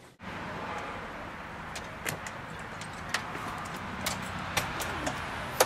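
Glass storm door being opened and pulled shut: scattered light clicks and knocks of its handle and latch, with a sharp knock near the end. Behind them runs steady outdoor background noise.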